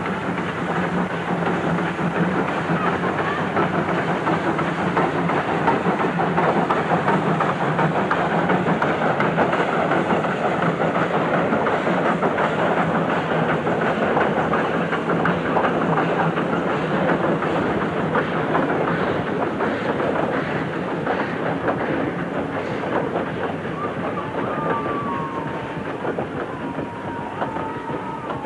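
A CC-50 Mallet steam locomotive working hard past with a passenger train: fast, dense exhaust chuffing, then the clatter of the carriages rolling by, easing off a little toward the end.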